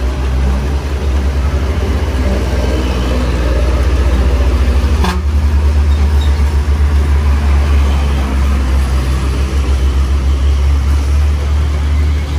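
Diesel engine of a loaded Hino cargo truck labouring uphill round a steep hairpin, a deep pulsing rumble that swells as it passes close, over the hiss of traffic on the wet road. A short knock about five seconds in.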